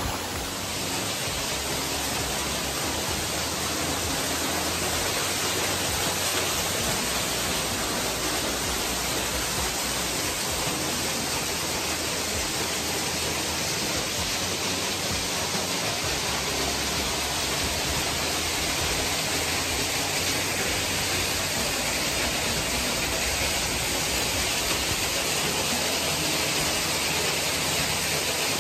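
Steady rushing of a waterfall, an even, unbroken hiss of falling water.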